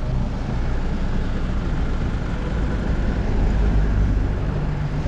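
Steady low rumble of an SUV's engine and tyres on a dirt road, heard from inside the cabin.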